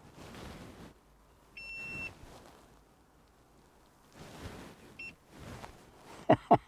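Car humidifier's touch-button beeper sounding a high electronic beep, about half a second long, then a brief second beep a few seconds later, confirming button presses. A few sharp clicks near the end.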